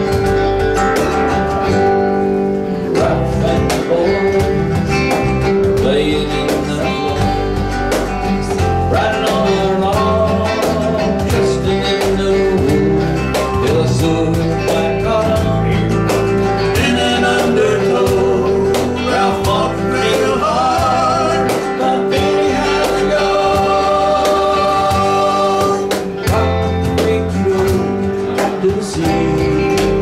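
A small live band playing: acoustic guitar strumming over electric bass guitar, with a cajon keeping the beat.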